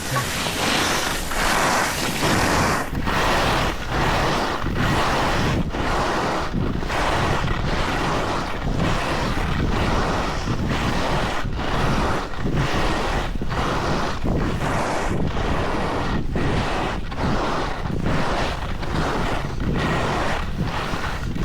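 Wind rushing over the microphone of a camera carried by a skier on the move, mixed with skis scraping over hard snow. The loud, even rush dips briefly about once a second.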